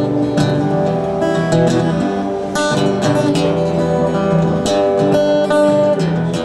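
Acoustic guitar strumming chords, each strum ringing on into the next, roughly one new strum a second.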